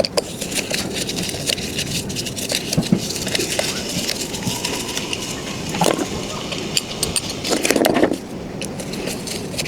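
Irregular clicks, knocks and scrapes of hands and tools working on an electric scooter's wheel and tyre.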